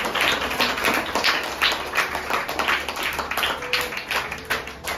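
A small group clapping by hand: quick, uneven claps overlapping without a break.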